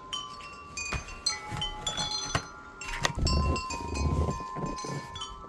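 Wind chimes ringing, with many overlapping tones at different pitches sounding one after another and ringing on. Some low thumps come through about three seconds in.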